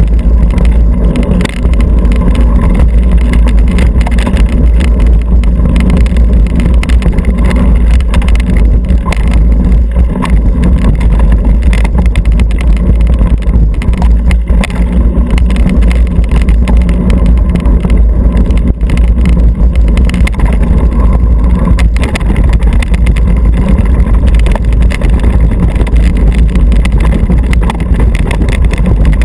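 Wind rumbling on the microphone of a camera riding a mountain bike at speed, over the tyres running on a dirt singletrack and the bike rattling and clicking over bumps. It is loud and steady, with no break.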